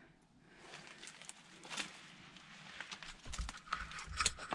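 Footsteps crunching over debris, with rustling and scattered clicks and cracks; dull thuds from the steps join in about three seconds in.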